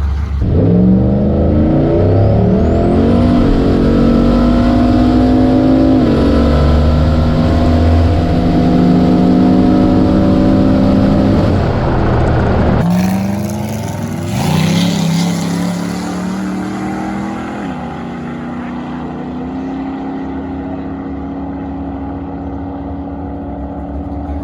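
Turbocharged 6.0-litre LS V8 in a Fox-body Mustang accelerating hard on a drag pass. The pitch climbs through the gears and drops sharply at each shift, twice, over a high whine. It breaks off about halfway through and starts a second climbing run through two more shifts, then holds steady near the end.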